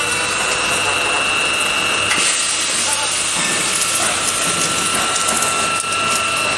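Tube roll forming machine running: a steady mechanical noise of the forming rollers and their gearbox drives, with two steady high whining tones over it.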